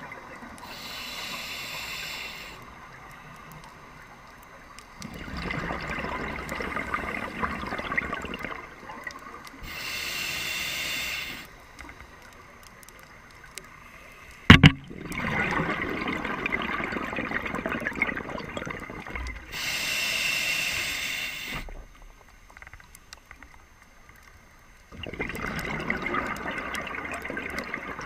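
Scuba diver breathing underwater through a regulator, three breaths: each a short hissing inhale followed by a longer rush of exhaled bubbles. One sharp knock about halfway through, the loudest sound.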